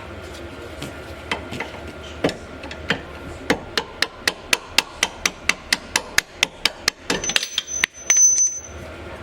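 Hammer striking steel while driving out a rear suspension bolt: a few scattered blows, then a quick even run of about four taps a second. Near the end comes a high metallic ring, which is also the loudest part.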